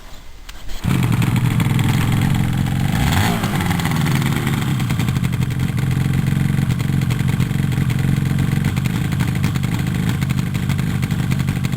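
Yamaha RD250LC two-stroke parallel-twin engine firing up about a second in. It is revved once briefly a couple of seconds later, then settles into a steady idle.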